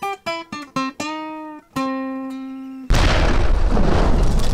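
Intro jingle: a quick run of short plucked-string notes ending on two longer held notes. About three seconds in, a loud burst of rushing noise cuts in suddenly and keeps going.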